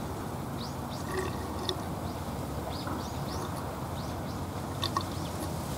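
Small birds calling in many short, high chirps over a steady low background rumble.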